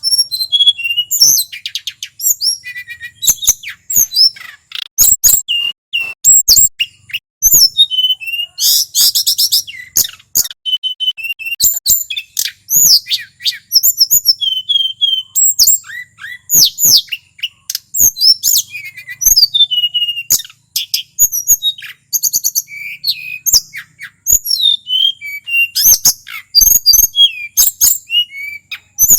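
Male tledekan gunung singing a fast, varied song of chirps, whistled notes, clicks and buzzy trills, phrase after phrase with only short pauses.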